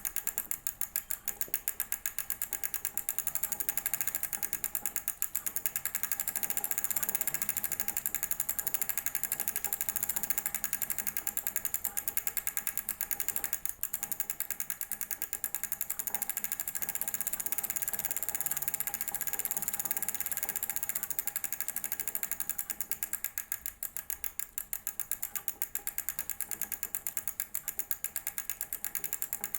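Bicycle wheel spinning with a rapid, even mechanical ticking that keeps a steady pace throughout.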